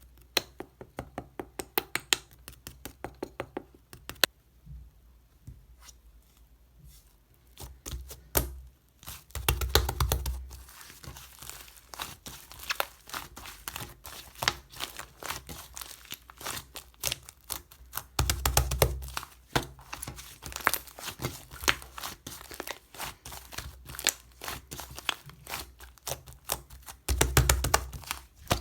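Fluffy white clay slime being squished, stretched and pressed by hand, giving rapid trains of sharp crackling clicks and pops. Three louder squishing bursts come about a third of the way in, near the middle, and near the end.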